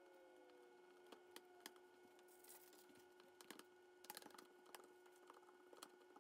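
Faint scattered clicks and taps of fingers and long fingernails on a plastic cutting board while bread dough is stretched and pressed out by hand, with a brief rustle of cling film, over a steady faint hum.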